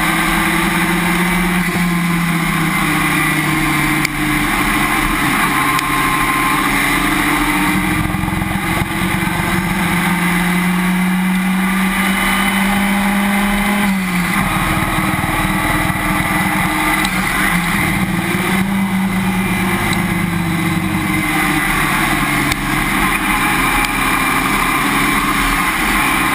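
Race car running hard on track, heard from under the car by the rear suspension. The engine note climbs and falls with speed and drops sharply about halfway through, over steady road and wind rush.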